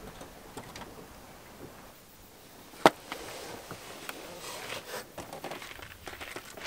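A single sharp click about three seconds in, then soft scuffing and crunching on gravel as bare feet slide into rubber flip-flops and shift about on the ground.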